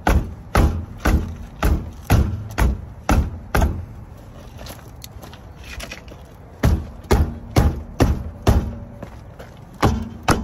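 Dull thuds of a boot kicking a stuck car wheel and tyre to break it free from the hub: a run of eight kicks at about two a second, a pause of about three seconds, then five more and two near the end.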